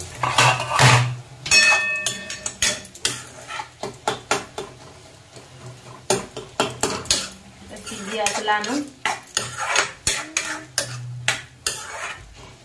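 A metal spoon stirring and scraping leafy greens in a steel kadhai, with irregular clinks and scrapes against the pan's side and bottom.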